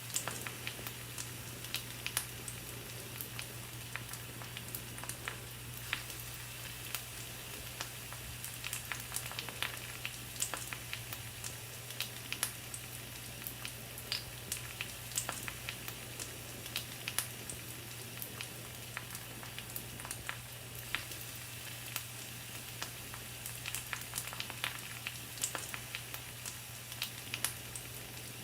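Pork sizzling on a grill over a wood fire: a steady hiss with frequent sharp crackles and pops.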